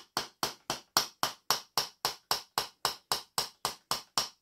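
Wooden mallet striking the back of a knife blade in quick, even taps, about four a second, driving the blade into a hazel shaft to pare off small slivers of wood.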